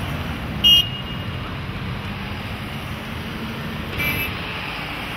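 Steady road-traffic rumble from passing cars and minibuses, with two short horn beeps: a loud one under a second in and a quieter one near the end.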